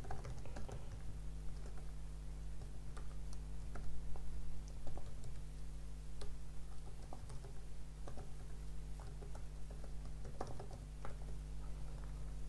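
Typing on a computer keyboard: irregular, quick keystroke clicks over a steady low hum.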